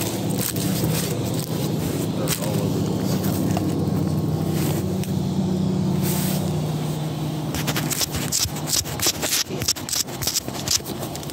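A steady low engine drone, its pitch shifting slightly partway through, with a dense run of crunching clicks and knocks from about eight seconds in.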